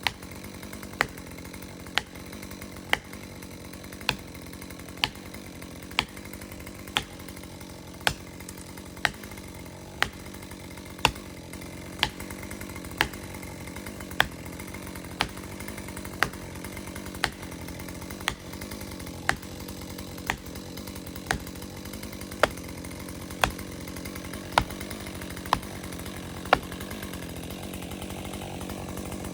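Chainsaw idling steadily while a felling wedge is hammered into the back cut with sharp, even blows about once a second; the blows stop a few seconds before the end.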